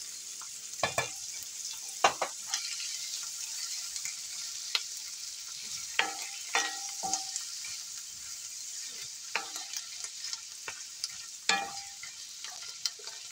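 Mushrooms, onions and meatballs sizzling in a cast iron skillet as a wooden spoon stirs them. The spoon knocks and scrapes against the pan every second or two.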